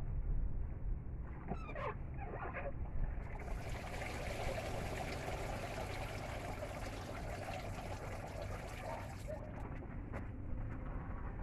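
Dry banana leaves rustling and crackling as they are handled, then a steady rushing noise like trickling water that starts about three seconds in and stops about nine seconds in.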